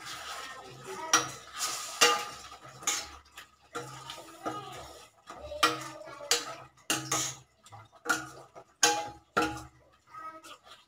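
Spoon scraping and clinking against a stainless steel kadai as a thick onion and paneer gravy is stirred, in irregular sharp strokes about once a second.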